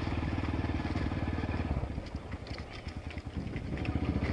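Small motorcycle engine running with a rapid, even firing pulse. It eases off a little in the middle and picks up again near the end.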